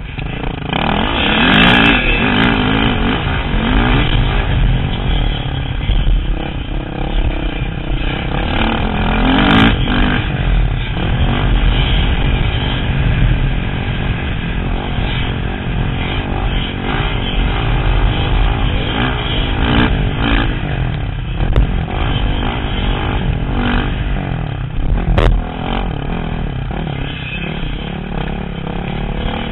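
Dirt bike engine revving up and down as it is ridden hard around a motocross track, heard close up from a helmet camera. A few sharp knocks come through near the start, about ten seconds in, and near the end.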